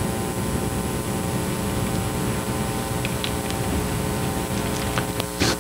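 Steady electrical hum and hiss of a sound system, with an uneven low rumble underneath. A few light clicks come in the second half, and a sharper knock near the end.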